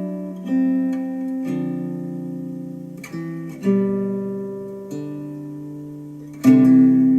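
Acoustic guitar music played back through KEF LS50 Meta bookshelf speakers: chords struck every second or so, each left to ring out, the loudest one near the end.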